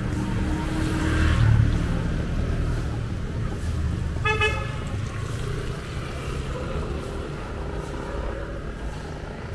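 Road traffic rumbling, with a vehicle passing close and loud about a second and a half in, then a single short car horn toot about four seconds in.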